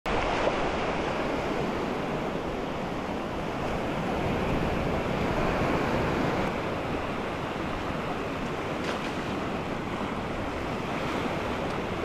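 Small sea waves washing onto a sandy beach: a steady rush of surf, with some wind.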